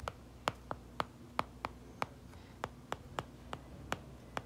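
Stylus tip tapping and clicking on a tablet screen while writing a word by hand: about a dozen sharp, irregular clicks over a faint low hum.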